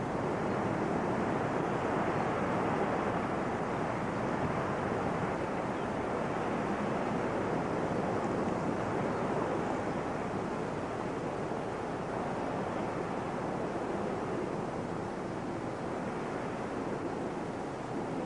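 Steady, even rushing noise like wind, with no distinct events.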